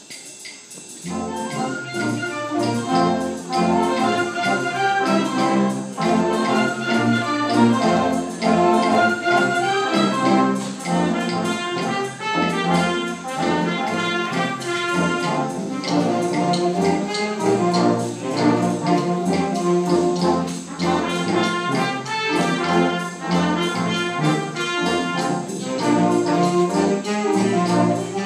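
A concert wind band of brass, saxophones and flutes playing together, coming in about a second in.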